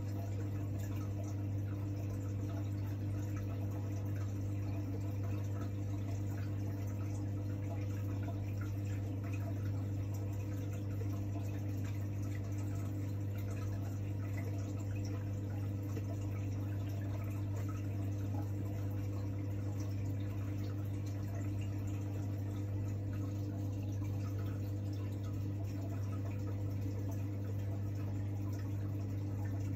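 Reef aquarium equipment running: a steady low hum from the tank's pumps with a wash of circulating water.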